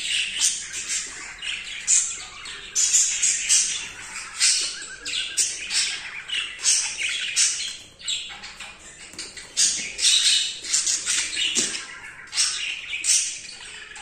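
Budgerigars chattering in a fast, unbroken run of chirps and scratchy squawks, the warble of an excited male budgie courting a hen.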